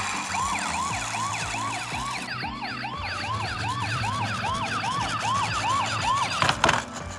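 Toy ambulance's electronic siren sounding a fast repeating yelp, about three quick rising-and-falling chirps a second. A couple of sharp clicks come near the end.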